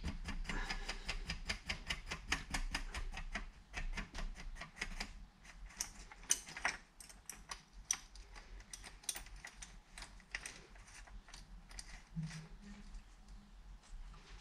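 Rapid light metal clicking at a child's bicycle rear hub being reassembled by hand, about eight clicks a second, thinning to scattered clicks and taps about five seconds in.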